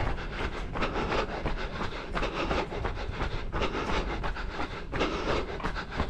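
A runner's footsteps on a paved lane, an even beat of about three a second, with his breathing.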